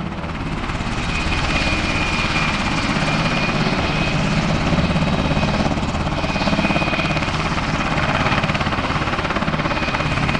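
Black Hawk helicopter running on the ground with its main rotor turning: a steady, rhythmic rotor beat under a thin high whine from its twin turboshaft engines.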